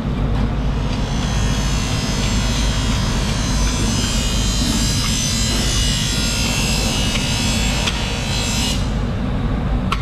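A knife scraping along the skin of a large fish as the skin is stripped off, a steady rasping hiss that stops abruptly near the end, over a low steady motor hum.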